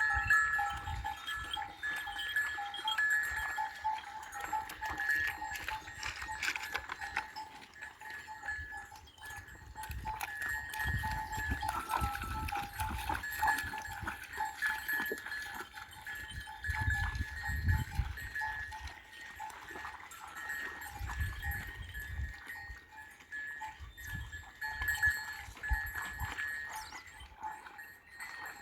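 Bells on a grazing flock of sheep, clinking and ringing over and over, with intermittent low rumbles underneath.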